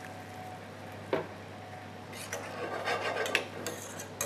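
A metal spoon stirring and scraping in a small stainless-steel saucepan of diced potatoes in stock, starting about two seconds in after a single knock about a second in.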